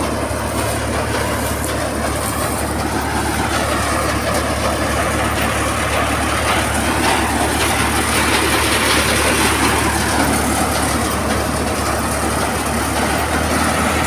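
Tractor-powered drum-type paddy thresher running with a steady, loud mechanical din and a constant low engine hum.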